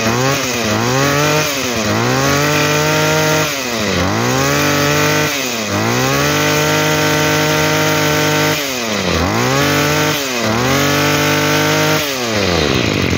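Tanaka 22 cc two-stroke brush cutter engine being test-run and revved. There are a few quick throttle blips in the first two seconds, then the throttle is held open at high revs for one to two and a half seconds at a time, dropping briefly between. The engine falls back to idle near the end.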